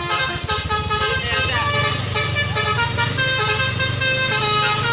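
Bus 'telolet' musical air horn playing a basuri-style melody: held notes that step from one pitch to the next, with a few sliding notes. A steady low hum from the bus engine runs beneath.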